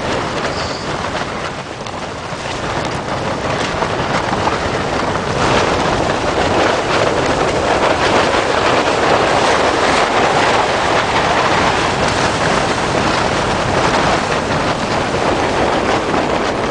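Tent buffeted by 40 to 50 mph wind at a high mountain camp, the fabric flapping and rattling against a steady rush of wind. The wind grows louder over the first several seconds and then stays strong.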